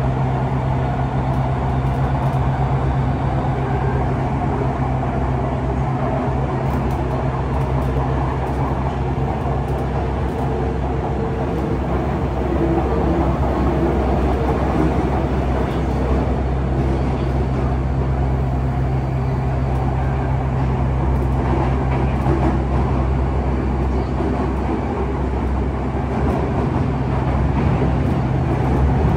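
Running noise of a Yokohama Municipal Subway 3000A-series train with Mitsubishi GTO-VVVF traction, heard inside the car: a steady low rumble of the moving train. It grows a little louder about twelve seconds in and again near the end.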